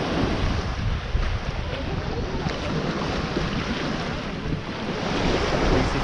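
Small waves washing and breaking on a sandy beach at the water's edge, with wind buffeting the microphone.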